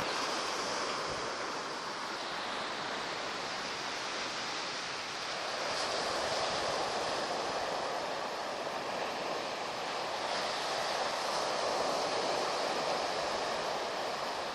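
Sea surf breaking and washing in a steady rush, swelling a little about five seconds in.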